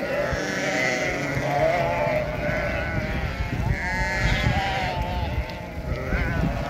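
A flock of sheep, with some goats among them, bleating continuously, many calls overlapping, over a low rumble.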